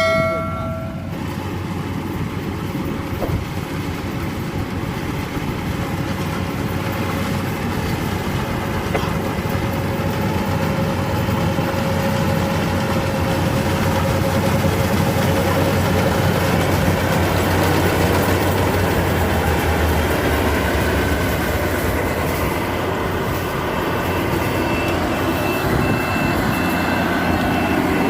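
Yanmar AW82V combine harvester's diesel engine and machinery running steadily, growing a little louder through the first half. A high beep repeats over the last few seconds.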